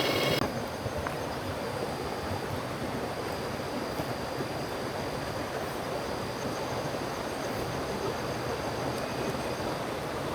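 Steady rushing of water, as of heavy rain or a river current, with a faint thin high tone that comes and goes.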